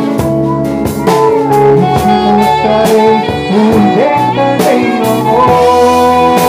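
Instrumental break of a Brazilian gospel song's backing track: a held, sliding lead melody over drums and accompaniment.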